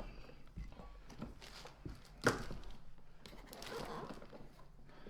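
Plastic parts of a Numatic James canister vacuum being handled and fitted: scattered light clicks and knocks, with one sharper knock a little over two seconds in.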